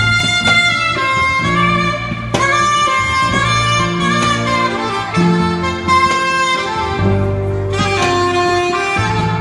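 Saxophone playing a melody over guitar and electric bass accompaniment, with some notes held for about a second.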